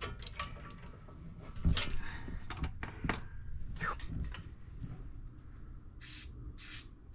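Hand tools and steel brake hardware clinking and tapping against each other at a truck's front brake caliper bracket: a run of sharp metallic clinks, the loudest about three seconds in. Two short hissing bursts follow near the end.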